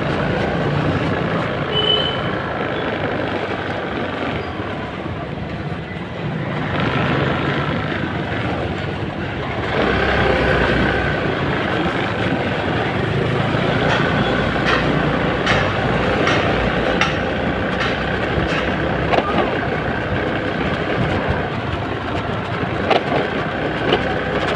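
Steady engine and road noise from a moving two-wheeler in city traffic, with other scooters and cars passing close by.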